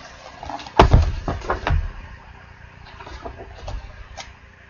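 A colouring book being handled and its pages turned: a sharp knock about a second in, then a short run of thuds and paper rustling. A few lighter taps follow.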